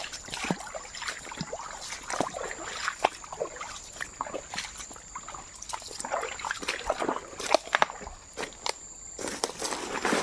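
Footsteps sloshing and splashing through shallow water and wet ground: an irregular run of squelches and clicks.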